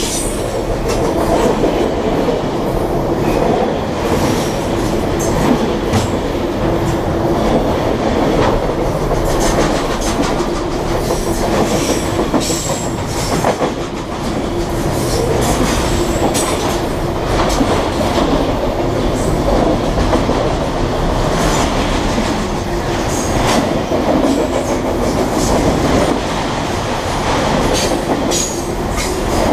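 Freight train of autorack cars rolling past close by: a steady rumble of steel wheels on the rails, broken by frequent clanks and clicks from the cars and wheels.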